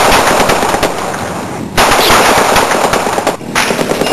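Rapid automatic gunfire, shot after shot in close succession, with short breaks about two and three and a half seconds in.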